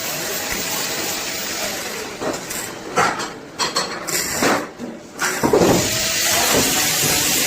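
Metal pieces clinking and clanking several times over a steady hiss. The clanks come between about two and a half and five and a half seconds in, and the hiss breaks off around them.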